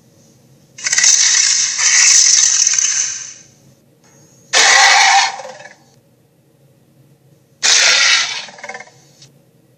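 Cartoon monster roar sound effects: a long, raspy roar lasting about two and a half seconds, then two shorter roars a few seconds apart.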